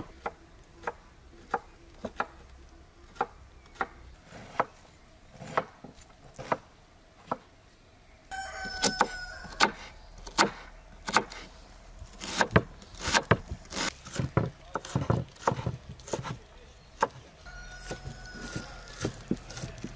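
Kitchen knife and cleaver chopping onions and lamb meat on a wooden cutting board. Sharp knocks come a little more than once a second at first; after about eight seconds the chopping turns heavier and faster. A rooster crows twice in the background, about nine seconds in and near the end.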